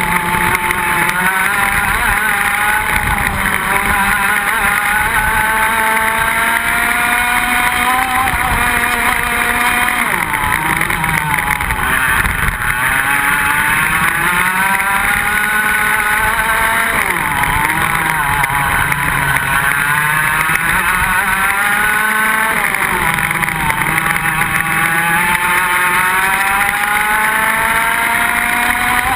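Iame X30 125cc two-stroke kart engine at racing speed, heard onboard. Its pitch rises along the straights and drops sharply several times as the kart slows for corners, ending in a long climb up through the revs.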